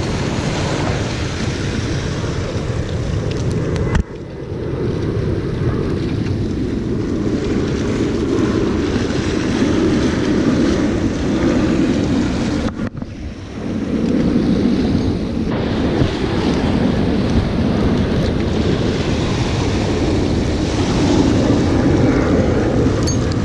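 Wind buffeting the camera microphone over small waves washing and breaking against jetty rocks, a steady low rush. It drops out suddenly for a moment about four seconds in and dips briefly again about halfway through.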